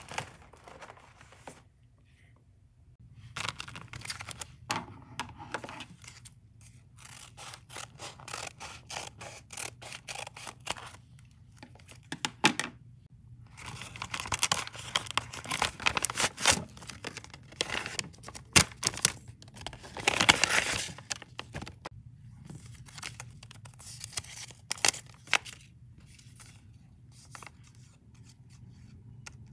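Paper rustling and crackling as a homemade paper blind bag is handled and opened, in short crinkly bursts with quiet gaps, the longest stretch about two-thirds of the way in.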